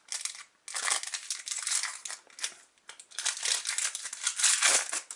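Foil trading-card booster pack crinkling and crackling as fingers work it open, in irregular bursts with two short pauses, loudest near the end.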